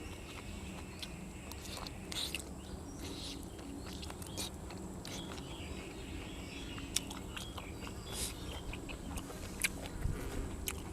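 A person chewing grilled cuttlefish and raw vegetables, with scattered sharp clicks from eating.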